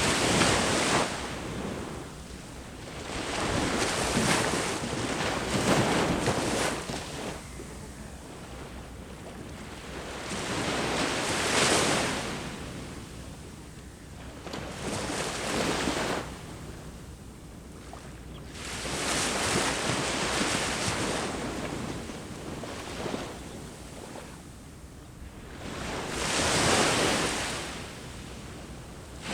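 Sea waves breaking and washing up a beach, each rush of surf swelling and fading away every four to five seconds.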